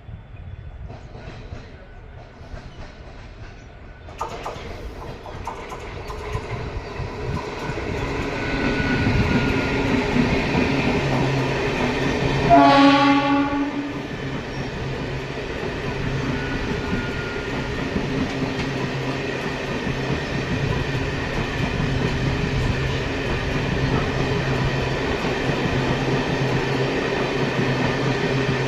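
Indian Railways express train approaching and passing at speed: the rumble builds over the first several seconds, the locomotive's horn sounds for about a second midway, falling in pitch, and the coaches then run past with a steady loud rumble.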